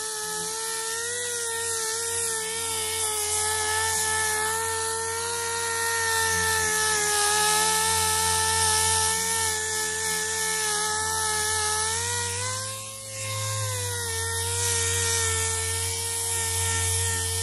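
Power sander running with a steady high whine, sanding down dried Bondo body filler to feather it out. Its pitch wavers slightly and sags briefly, with a dip in level, about two-thirds of the way in.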